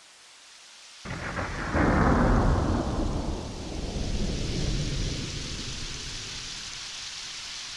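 A thunderclap breaks about a second in and rolls on as a rumble that fades over the following seconds. Under it is the steady hiss of heavy rain.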